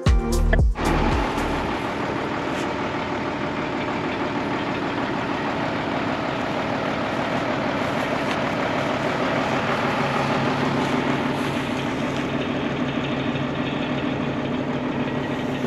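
Farm tractor engine running steadily at an even pitch. Background music ends in the first second.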